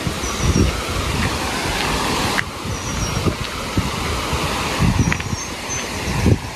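Outdoor ambience: a steady rushing noise with irregular low buffeting of wind on the microphone, and a few faint short high peeps about every two seconds.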